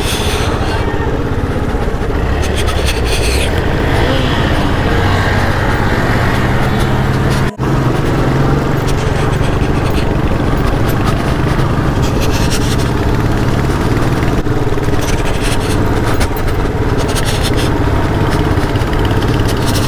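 Motorcycle being ridden: its engine running under a steady rush of wind and road noise, cutting out for an instant about seven and a half seconds in.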